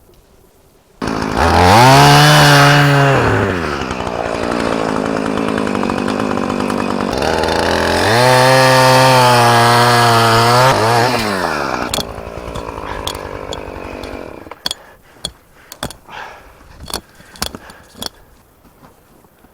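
Two-stroke chainsaw starting up about a second in and revved high twice, with a lower steady stretch in between, then cutting off about twelve seconds in. Scattered sharp knocks follow.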